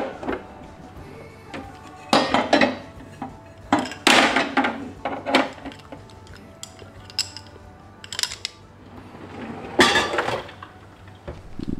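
Plastic kitchenware and loose organizer pegs knocking and clinking as a pegboard-lined kitchen drawer is rearranged, in a handful of separate clatters. A louder knock about ten seconds in, as the drawer is pushed shut.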